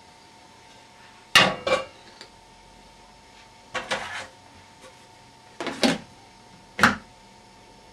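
Sharp knocks and clatters of a long wooden stirring spoon being put down and a plastic lid being fitted onto a fermenting bin, in four short clusters a second or two apart.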